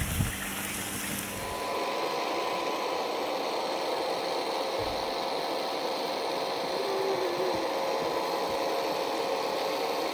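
A small bubble machine's motor and fan running with a steady hum, starting about a second and a half in.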